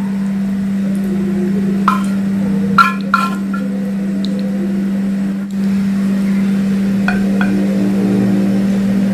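Clinks of a wok and chopsticks against a ceramic plate as stir-fried chicken is scraped out onto it: three about two to three seconds in and two more about seven seconds in, over a steady low hum.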